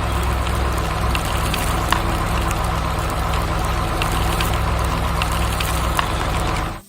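A heavy machine's engine running steadily at idle with a low rumbling hum and a few light clicks, cutting off abruptly near the end.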